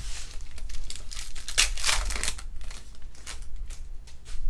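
Crinkling and tearing of a foil Panini Prizm baseball card pack wrapper as it is ripped open and handled. The crackling is loudest about two seconds in.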